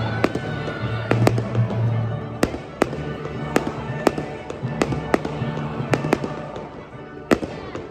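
Aerial fireworks bursting in an irregular string of sharp bangs, roughly one or two a second, loudest about a second in, with music playing underneath.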